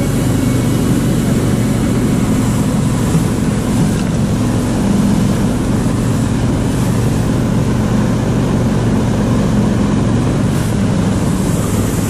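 Motorized snow tow (motodog) engine running steadily under load as the machine pulls along a snowy track.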